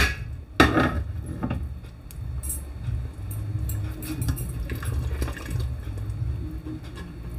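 A sharp metal clank from a stainless-steel pressure cooker about half a second in. Later, a spatula stirs the thin goat meat curry in the pot: liquid sloshing and light knocks against the pot, over a steady low hum.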